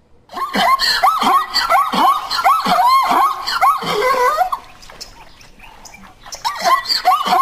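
An animal's short, high squealing calls repeated several times a second, then a lull of about two seconds before they start again near the end.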